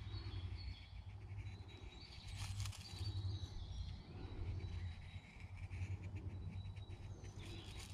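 A Scandi-ground bushcraft knife shaving thin curls down a wooden stick to make a feather stick: faint scraping strokes, a few seconds in and again near the end, with birds calling faintly.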